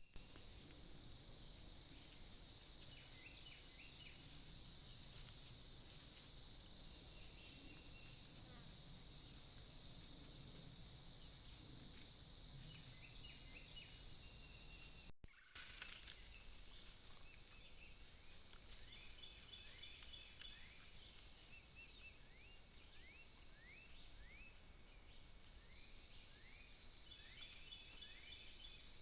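Steady high-pitched chorus of insects trilling, with scattered short high chirps over it. The sound drops out for a moment about fifteen seconds in, then the chorus resumes.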